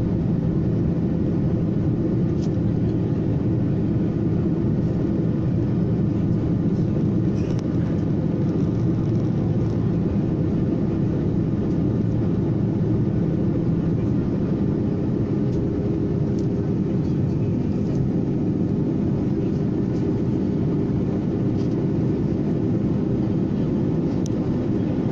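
Steady cabin noise of an airliner in flight: the even rush of engines and airflow, unchanging in level, with a few faint ticks.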